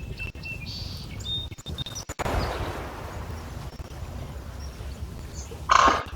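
Small lake waves lapping against shoreline stones over a steady low rumble, with a few short bird chirps in the first two seconds. A brief loud noisy burst comes near the end.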